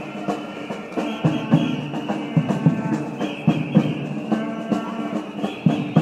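Protest drums beating an irregular rhythm, with a crowd's voices rising in repeated phrases about every two seconds.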